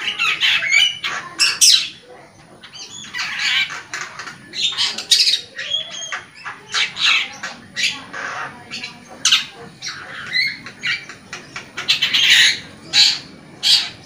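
Long-tailed shrike singing: a rapid, harsh chattering of short squawks and chirps, with brief gaps between phrases and a louder run of notes near the end.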